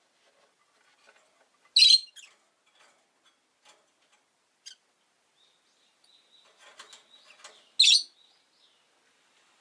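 Rosy-faced lovebirds calling: two loud, short, high-pitched chirps, about two seconds in and again near eight seconds, with soft chattering and small clicks between them.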